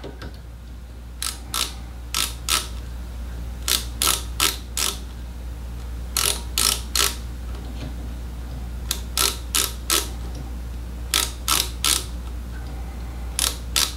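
Ratchet stop of a digital micrometer clicking in quick runs of two to four clicks, about seven times over, as the spindle is closed on a nickel silver male ferrule slide to gauge its diameter at points along its length. A steady low hum runs underneath.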